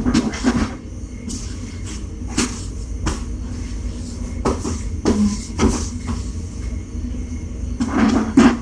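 Irregular knocks and clicks, about ten spread over several seconds, like doors or objects being handled out of view, over a steady low hum.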